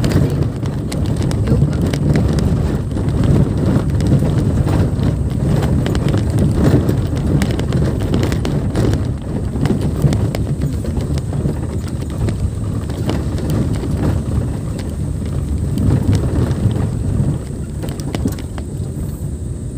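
Car driving over a rough, rocky dirt track, heard inside the cabin: a steady low rumble of engine and tyres with frequent knocks and rattles as the car jolts over the bumps. It gets quieter near the end, as the wheels reach a smooth concrete stretch.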